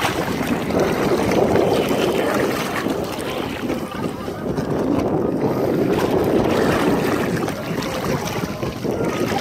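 Wind buffeting the microphone over water sloshing and lapping in the shallows; the noise rises and falls but stays steady overall, and no engine is running.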